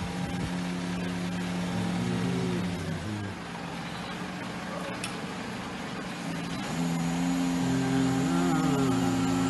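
Lorry-mounted crane's engine and hydraulics running at raised revs, a steady hum that wavers in pitch as the boom is worked, easing off about three seconds in and picking up again about seven seconds in. Two sharp clicks, at the start and about five seconds in.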